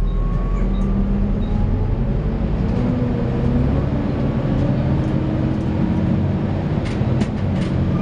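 Volvo B7TL double-decker bus under way, heard from the upper deck: the seven-litre six-cylinder diesel runs steadily under a whine that slowly rises and falls in pitch, the vacuum-cleaner-like note that gets this bus called a 'hoover'. A few short rattles come near the end.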